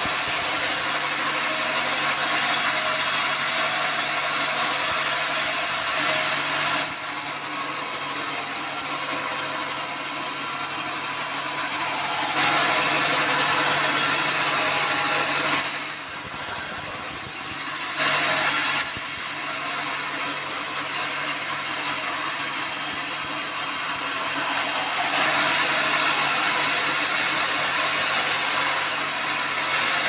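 Vertical band sawmill running and cutting through a mahogany log. A steady motor hum sits under the hiss of the blade, which grows louder and quieter in stretches as the log is fed through.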